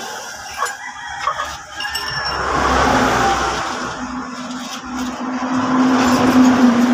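A few light metal clinks, then a motor vehicle's engine drones steadily from about two and a half seconds in, growing a little louder towards the end.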